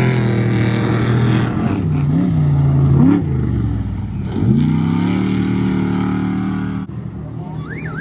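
Off-road race truck engine revving hard as the truck goes by, its pitch dipping and climbing several times as the throttle is lifted and reapplied, then dropping away suddenly about seven seconds in. A warbling, siren-like tone starts near the end.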